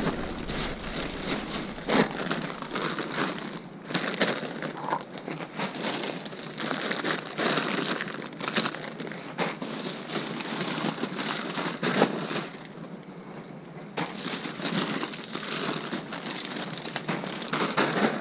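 Plastic bags and packaging crinkling and rustling as they are rummaged through and handled, with an occasional sharp knock.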